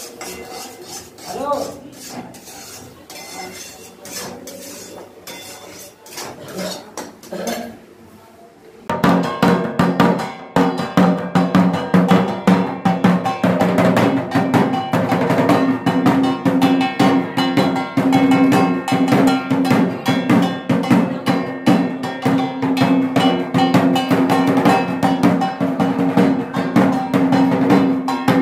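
Quiet kitchen sounds of cooking at a gas stove with a few clinks of utensils. About nine seconds in, a two-headed barrel drum (dhol) beaten with a stick starts up loud in a fast, steady festive rhythm, with hand-clapping.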